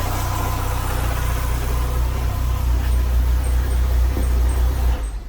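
Chevrolet Corsa engine idling with a loud metallic noise from the front of the engine, then switched off about five seconds in. The noise comes from the crankshaft pulley and reluctor wheel, whose bolt has worked slightly loose.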